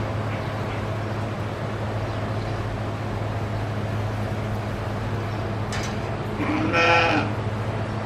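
A sheep bleats once, about a second long, near the end, over a steady low hum.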